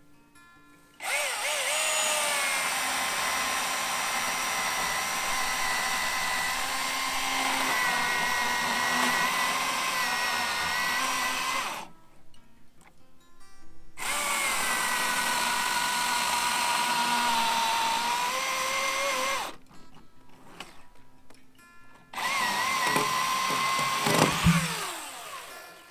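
Cordless Milwaukee electric chainsaw cutting through a small cedar log three times, a steady electric whine that dips in pitch as the chain bites into the wood, with short pauses between the cuts. A heavy thud near the end, as a cut section drops.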